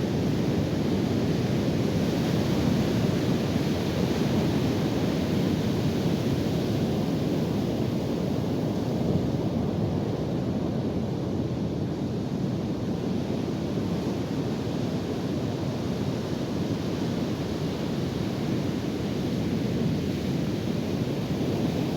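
Ocean surf and wind buffeting the microphone: a steady, even wash of noise.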